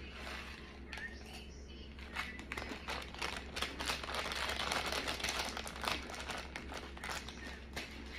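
Crinkling of a Doritos chip bag being handled and shaken, dense crackling that is heaviest from about two to six seconds in.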